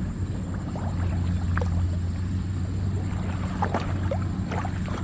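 A motor running with a steady low hum, with a few faint short chirps here and there.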